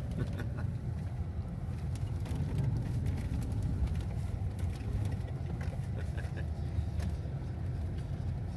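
Car driving slowly on a snow-covered road, heard from inside the cabin: a steady low rumble of engine and tyres, with scattered light clicks and crackles.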